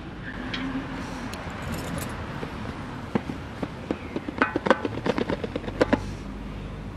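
Cardboard LG G4 smartphone box being handled: a soft scraping as the seal sticker is cut, then from about three seconds in a quick run of sharp clicks and taps as the outer sleeve is worked off the box. A low traffic hum runs underneath.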